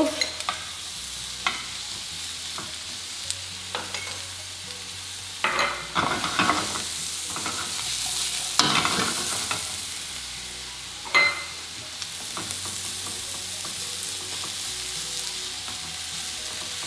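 Diced onion and cooked potato cubes frying in oil in a non-stick pan, a steady sizzle, with louder scrapes and knocks now and then as the pan is shaken and the food stirred with a silicone spatula.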